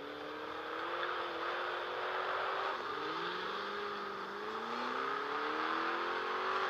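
Ford Mustang V8 engines, one of them a 4.6-litre GT, running and lightly revved as the cars creep up to a launch line. The engine notes rise and fall, and about halfway through a second, deeper engine note climbs slowly.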